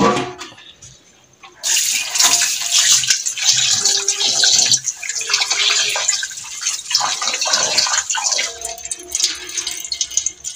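Tap water running over raw chicken livers in a steel bowl in a steel sink as hands rinse them. The water starts about two seconds in and is quieter over the last two seconds.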